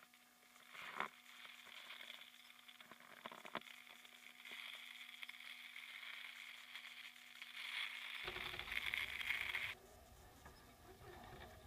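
Axial SCX10 RC crawler's electric motor and geartrain whining as the mud-terrain tires churn through snow, with a couple of short clicks about a second in and again a few seconds later. The whine grows louder and cuts off suddenly near the end, as the throttle is let off.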